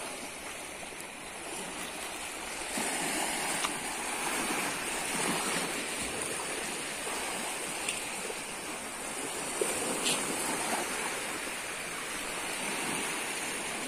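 Small sea waves washing over shore rocks: a steady rush of water that swells gently now and then, with a few faint ticks.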